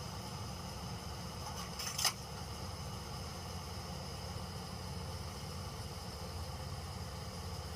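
Kubota DC105X combine harvester's diesel engine running steadily and smoothly, its engine and injection pump still sound after more than 1600 hours. A brief scrape or click about two seconds in.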